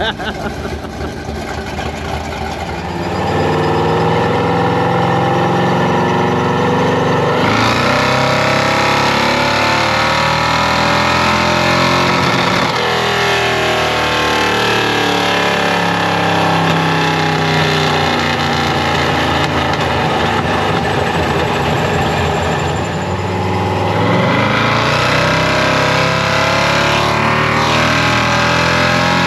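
Carbureted gas engine of a 1976 Chevy C10 pickup revving under full load on a chassis dyno. It opens quieter, then gets loud about three seconds in, the engine pitch climbing with a sudden shift about seven seconds in. The pitch falls back about twelve seconds in and climbs again near the end. The engine misses slightly as the throttle is first floored.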